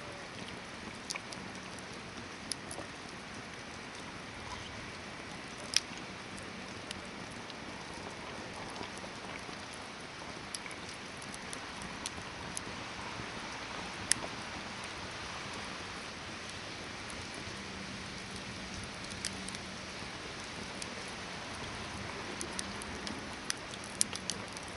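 Hardwood campfire burning: a steady hiss with scattered sharp crackles and pops, the loudest about six seconds in and again about fourteen seconds in, with a quick run of pops near the end.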